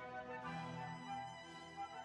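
Background music of slow held notes, led by a violin-like bowed string line.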